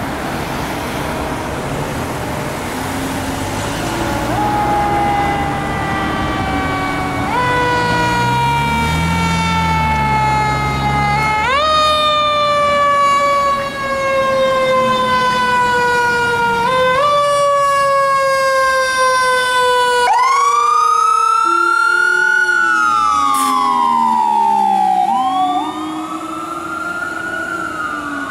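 Fire engine's Whelen electronic siren sounding a slow falling tone that jumps back up in pitch several times. About twenty seconds in it changes to long rising-and-falling wail sweeps, with the low-pitched Whelen Howler tone sweeping along beneath.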